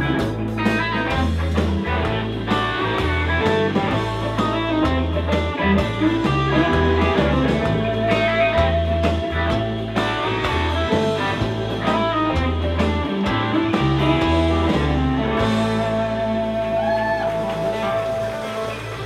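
Live band playing an instrumental passage of a gospel song: electric guitars lead over keyboard, bass and drums.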